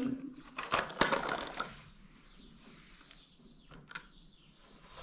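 Plastic toy wheel loader being handled, its bucket arm and parts clattering in a quick run of clicks and rattles over the first two seconds, then only a few faint clicks.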